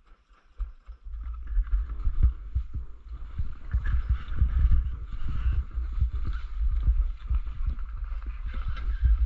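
Skis sliding and scraping over packed snow, starting about a second in, over an uneven low rumble.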